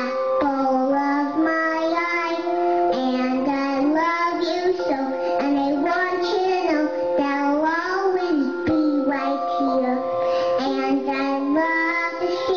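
Music: a sung melody over a steady, held accompaniment.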